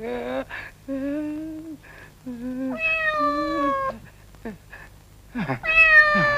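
Cat meowing, as a cartoon sound effect: a run of short calls, then two long, drawn-out meows, with quick downward slides between them.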